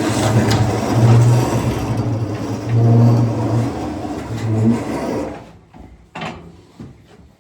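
A heavy load dragged and scraping along the ground for about five seconds, with a low rumbling hum, then stopping.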